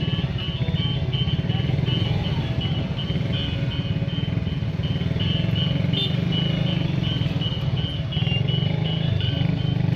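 Motor scooter engines running in stopped, crowded street traffic, a steady low engine drone.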